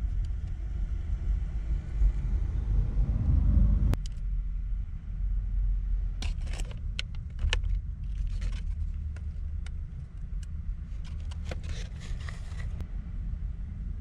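Plastic wrap and food packaging crinkling and rustling in short bursts with a few small clicks, over a steady low rumble that swells for the first few seconds and drops off abruptly about four seconds in.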